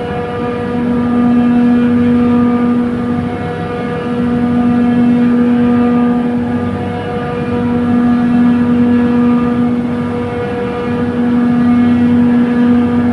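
Trane chiller compressor running with a loud, steady pitched hum and a string of higher overtones, swelling and easing about every three to four seconds. This is the abnormal noise from the compressor's discharge valve side, which the uploader links to gas bypassing.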